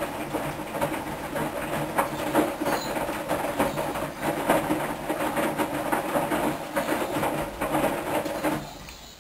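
Hoover washing machine running, its motor humming under a fast, steady rattling clatter. The sound drops away sharply near the end.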